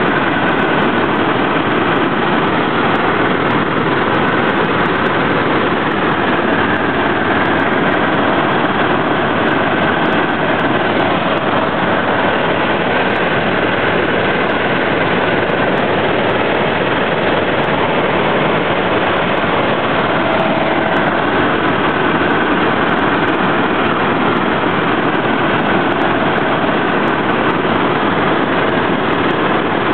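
Helicopter engine and rotor noise heard from inside the cabin in flight: a loud, steady, even rushing noise with a faint steady whine.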